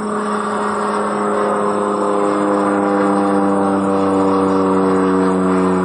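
Cessna 208 Caravan's single turboprop engine and propeller passing overhead: a steady drone over a rushing whine. It grows louder toward the middle, and its pitch falls slowly as the plane goes by.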